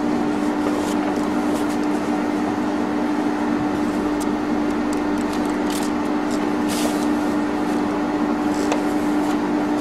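A steady hum at one constant pitch, with a few brief rustles of large paper drawings being handled, the clearest about six and seven seconds in.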